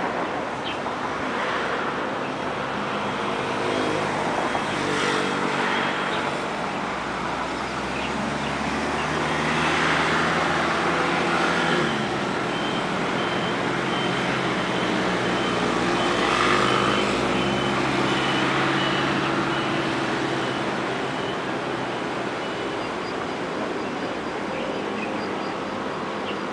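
Road traffic: a steady rush of passing vehicles that swells as cars go by, about three times. Under it, for much of the time, is the low drone of a heavy vehicle's engine.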